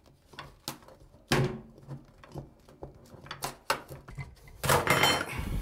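Steel flat pry bar tapping, clicking and scraping as it is worked under the rim of a self-rimming sink to break it free of its caulk seal against the countertop. A sharp knock about a second in, and a longer scraping stretch near the end.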